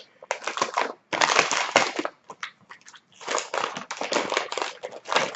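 Plastic wrapper of an Oreo Thins package crinkling and rustling in bursts as it is handled and opened.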